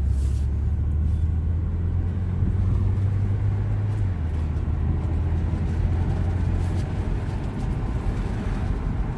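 2016 Audi S5 being driven on a road test: a steady low drone of engine and road noise. The deepest part of the drone eases off about four seconds in and again near seven seconds.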